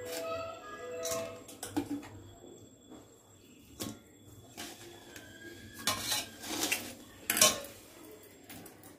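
Stainless-steel bowl and colander clinking and knocking as raw fish steaks are handled and dropped into the bowl. The strikes are scattered and irregular, and the loudest cluster of clinks comes in the second half.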